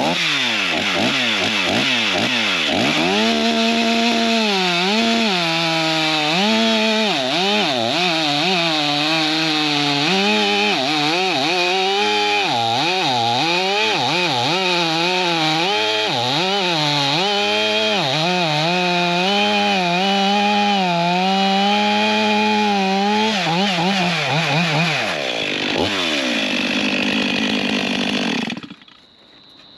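Stihl MS500i fuel-injected two-stroke chainsaw running at high revs while cutting through hardwood. Its engine pitch dips and recovers again and again as the chain loads up in the cut. The engine shuts off suddenly near the end.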